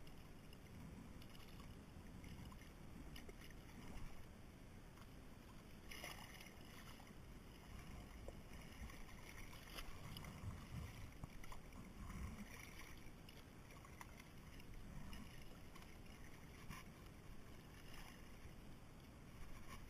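Faint, steady low rumble of wind and water around a kayak, with a few soft knocks or splashes.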